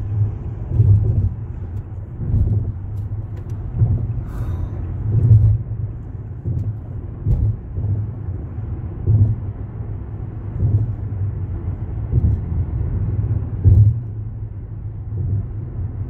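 Low rumble of a car driving, swelling and easing every second or two.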